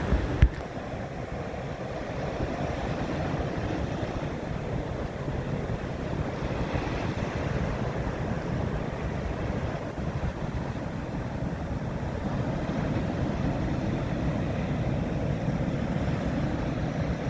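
Steady rush of wind on the microphone over the wash of the sea, with a single sharp knock about half a second in.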